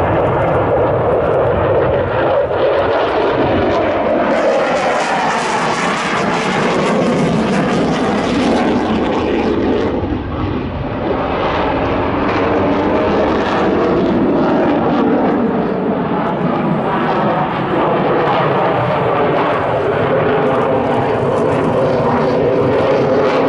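Loud, continuous jet noise from a Dassault Rafale fighter flying a display, its pitch drifting up and down as it moves, with a brief easing about ten seconds in.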